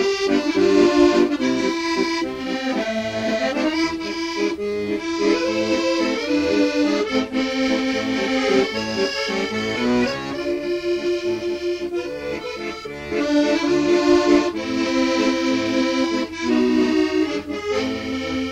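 Accordion playing a waltz tune: a sustained melody over held chords and bass.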